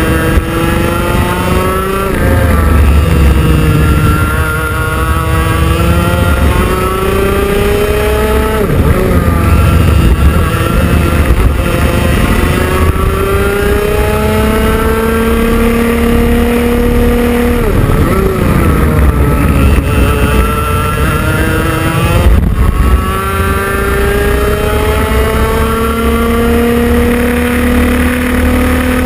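IAME X30 Junior 125cc two-stroke kart engine under racing load, its pitch climbing steadily as the kart accelerates along each straight and dropping sharply when the driver lifts off for the corners, about four times.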